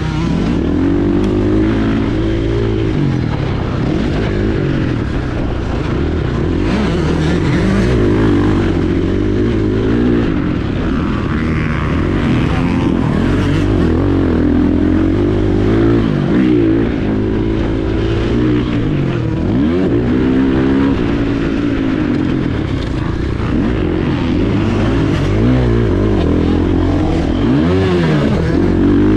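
KTM 450 SX-F's single-cylinder four-stroke engine revving hard, its pitch rising and falling again and again as the throttle is opened and closed.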